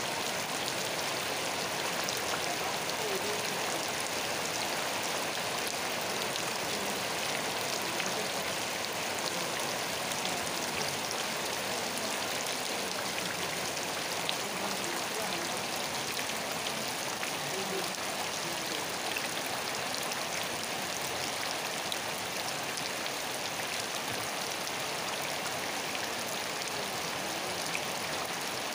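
Steady rain falling: an even hiss with the ticks of individual drops scattered through it.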